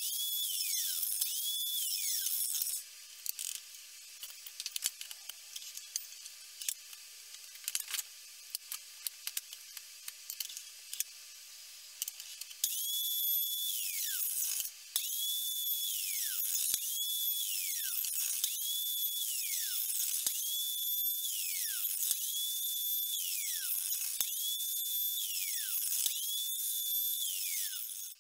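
Small benchtop mitre saw cutting thin wooden strips. Each cut has a high motor whine that spins up, holds for about a second, then winds down falling in pitch. There are two cuts at the start, then about ten seconds of light clicks and knocks, then about eight cuts in quick succession, roughly one every two seconds.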